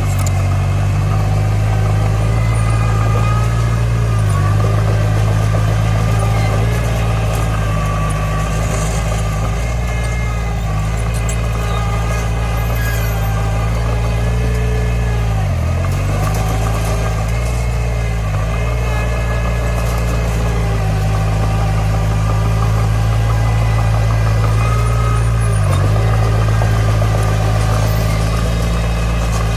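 Komatsu D20 bulldozer's diesel engine running steadily. It dips briefly in pitch a few times, most deeply about halfway through.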